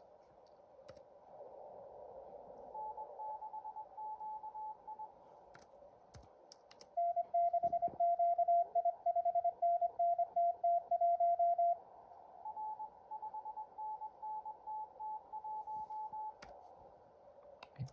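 Morse Runner contest simulator playing Morse code over a hiss of simulated band noise: faint code from stations calling in a pile-up, and in the middle about five seconds of much louder, lower-pitched code. A few short clicks.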